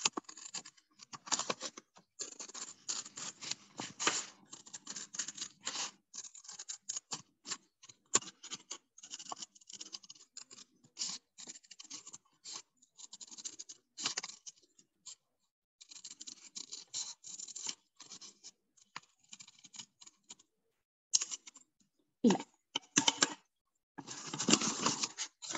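Scissors cutting a small circle out of yellow chart paper: many short, irregular snips with paper rustling, in clusters with brief pauses. The paper handling gets louder in the last few seconds.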